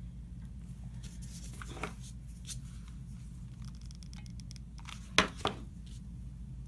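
Quiet handling of felt petals and a hot glue gun: faint rustles and small clicks over a low steady hum, with a sharp double knock about five seconds in.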